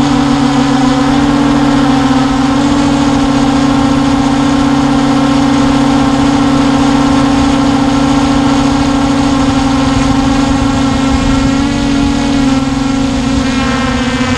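Hubsan H501S quadcopter's brushless motors and propellers humming steadily at one pitch, heard loud and close from on board the drone.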